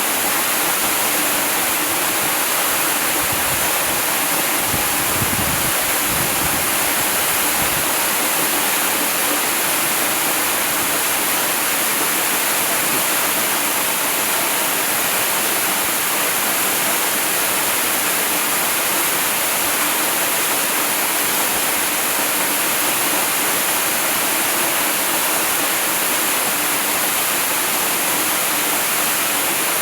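Waterfall rushing steadily as a continuous, even hiss of falling water, with a few low rumbles in the first several seconds.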